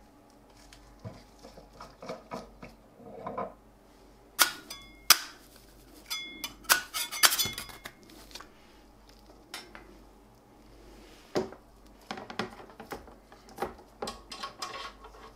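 Handling clatter of a resin printer's metal build plate and a printed resin gear: scattered clicks and knocks, with a cluster of sharp clinks, some ringing briefly, around the middle. Lighter knocks and taps near the end as a wire basket is lowered into a plastic container of isopropyl alcohol.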